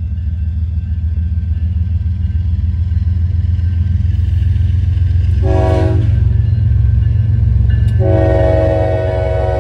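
An approaching Union Pacific diesel freight locomotive sounding its horn over a low rumble that grows louder. It gives a short chord-like blast about halfway through, then a long blast starting near the end, the closing short and long blasts of the grade-crossing horn signal.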